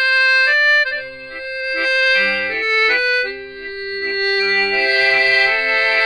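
Radio show musical bridge played on accordion: a melody of held reedy notes that changes note every half second or so, then swells into fuller sustained chords in the second half.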